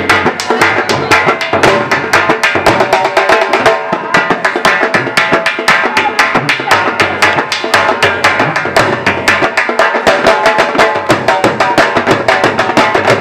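Dhol drum beaten in a fast, steady rhythm for a Punjabi jhumar dance, with sharp strokes several times a second.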